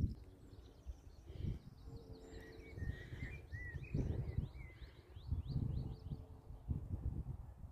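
Wild birds singing: quick chirps and short warbling phrases, busiest through the middle stretch. Gusts of wind buffet the microphone.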